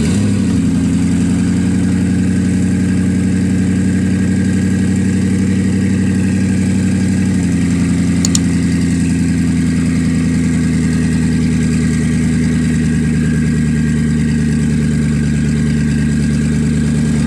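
Koenigsegg Regera's twin-turbocharged V8 idling steadily; the idle steps down slightly about seven seconds in.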